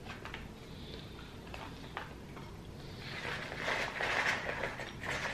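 French fries being shaken out of a paper takeout box onto a plate: a few light taps, then a rustle of paper and fries sliding out, loudest in the second half.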